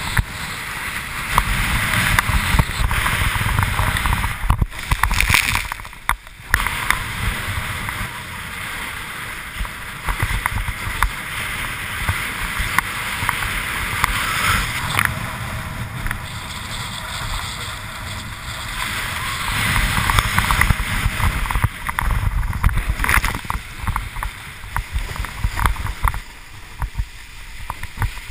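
Wind rumbling on the camera microphone over the rush and hiss of water spraying off a windsurf board planing fast through chop. The sound briefly cuts out twice about five and six seconds in.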